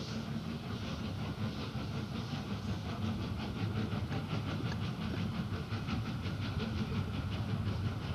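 Narrow-gauge steam locomotive pulling away, its exhaust chuffing in a steady rhythm that quickens as it gathers speed. A continuous hiss of steam comes from the open cylinder drain cocks.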